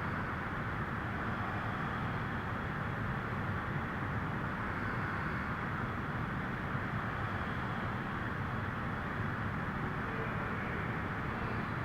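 Steady background noise: a constant low hum and hiss of room tone, with no clear rhythm or change.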